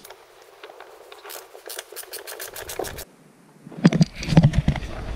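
Rapid clicking and scraping as a wrench works a seat-mounting bolt down by the floor carpet, with the clicks coming in quick, even runs. About four seconds in, louder bumps and rubbing follow as the seat is handled.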